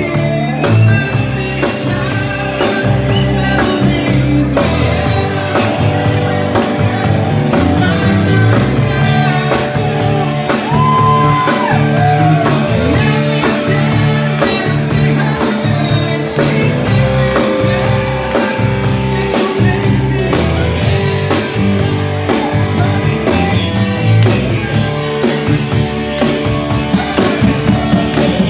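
A live band playing, with singing over electric bass, a drum kit and keyboard, and a steady drum beat throughout.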